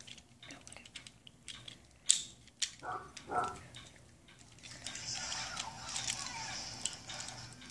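Scattered sharp clicks of plastic toy parts being handled and snapped into place while a G1 Thundercracker Transformers figure is transformed. From about five seconds in, a steadier high hissy sound joins.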